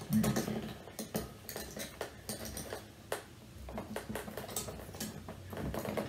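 Scattered light clicks and clinks of dishes and utensils being handled.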